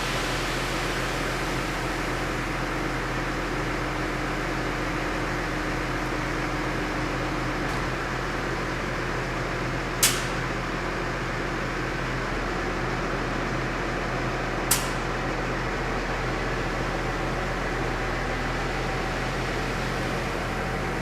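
Steady rushing of grain pouring out of a tipping trailer, with a steady machine hum underneath. Two short sharp clicks, about ten and fifteen seconds in.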